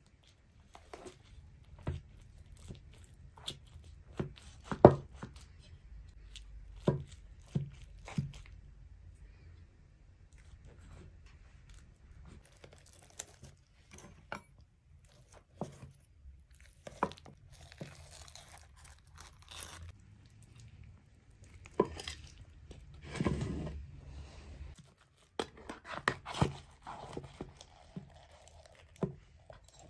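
A metal knife and server cutting through the crisp baked cheese top of a layered dish and scraping and knocking against its metal baking tin: irregular sharp clicks and scrapes, with short crunching stretches, the loudest knock about five seconds in.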